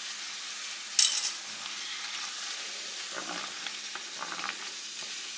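Red bell peppers and seasonings sizzling in a pan with butter and white wine, a steady hiss with a brief louder flare about a second in. A spoon stirs through them, with light scrapes and clicks against the pan.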